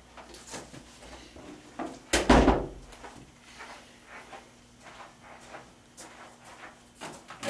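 Handling noises from plugging a portable air conditioner's power cord into an outlet: scattered light clicks and knocks, with one loud thump about two seconds in.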